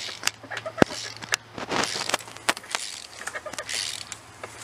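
Hand wrench breaking loose a torque-to-yield cylinder head bolt on a GM 3800 V6: scattered metal clicks and knocks, one sharp knock about a second in, with bursts of scraping and a steady low hum underneath.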